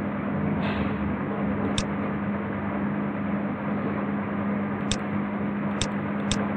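Steady hiss with a low hum from the recording setup, and four sharp computer mouse clicks. The last two clicks come close together near the end.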